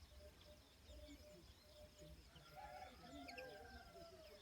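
Faint bird calls and chirps over a low steady hum, with a louder run of calls about two and a half seconds in.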